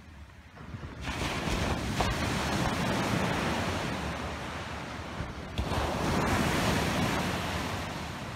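Small sea waves breaking and washing up a sandy beach: a surge of surf rises about a second in, eases off, and a second surge comes in about two-thirds of the way through, then fades.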